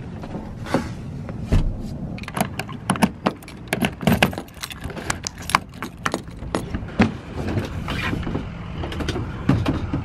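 Irregular clicks, knocks and rustling of someone climbing out of a car camper over its hinged plywood bed platform, over a steady low rumble.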